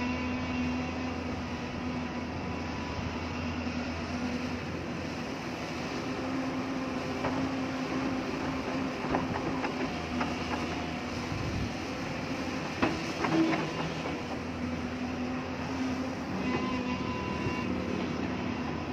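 Hyundai hydraulic excavator's diesel engine running steadily under work, with a few sharp metallic clanks and squeals about halfway through.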